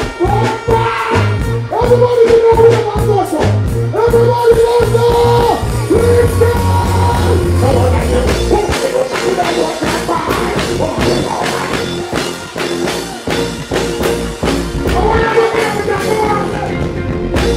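Live dancehall/reggae performance through a stage sound system: a singer's voice with held notes over a backing track of steady drums and heavy bass. The bass drops out about halfway through and comes back near the end.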